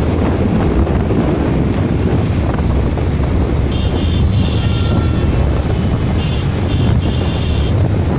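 Wind buffeting the microphone over the steady rumble of a moving vehicle on the road. About halfway through, broken high-pitched tones come and go several times.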